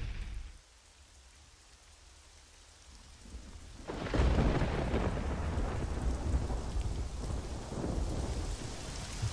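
Thunderstorm: after a brief lull, thunder swells and breaks loudly about four seconds in, then rumbles on under steady rain.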